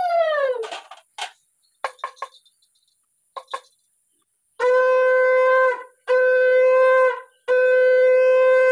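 Conch shell (shankha) blown in Hindu worship: the tail of one blast dropping in pitch and dying away at the start, a few small knocks, then three long, steady, loud blasts of about a second each, closely spaced.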